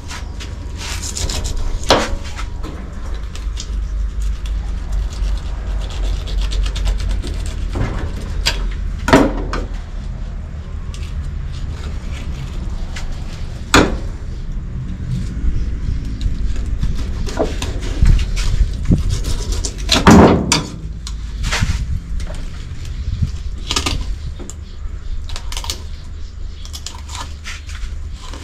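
A filleting knife cutting and scraping along a large mouth nannygai's backbone on a plastic cutting board, with several sharp knocks of knife or fish on the board. A steady low rumble runs underneath.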